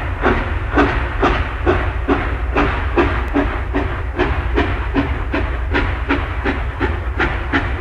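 Steam locomotive running at a steady pace, its beats coming about three times a second over a low rumble.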